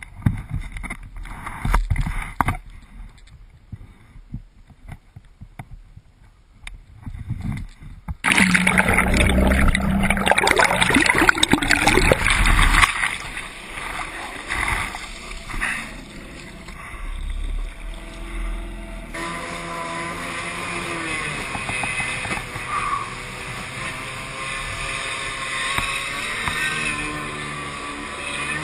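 Knocks and rustling on the camera at first. About eight seconds in, loud water splashing and sloshing starts as the rider hauls himself onto a stand-up jet ski. In the later part, the freshly rebuilt two-stroke twin engine of a 1990 Kawasaki 550 runs steadily under way, over hull spray, and its pitch rises near the end.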